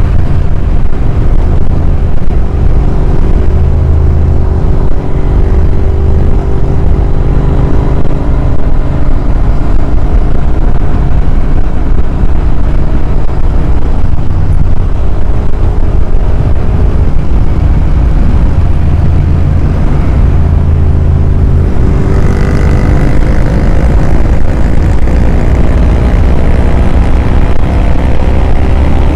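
Royal Enfield Interceptor 650's parallel-twin engine running at cruising speed, under heavy wind noise on the microphone. The engine note climbs gradually over the last several seconds as the bike speeds up.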